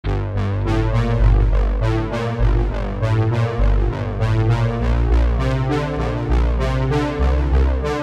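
Background synthesizer music with a steady beat and a deep bass line.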